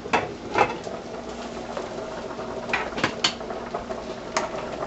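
A pot lid is lifted off a pot of boiling spaghetti, then a metal spoon clinks against the pot a few times as the pasta is stirred, over the steady bubbling of the boiling water.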